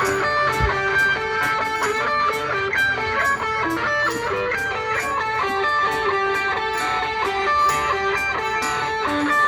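Live band music led by electric guitar, playing melodic notes over a steady beat, with regular short high ticks keeping time.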